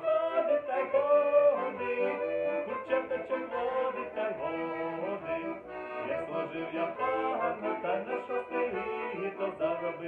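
Button accordion and violin playing a Ukrainian folk tune together, with quickly changing melody notes over accordion chords.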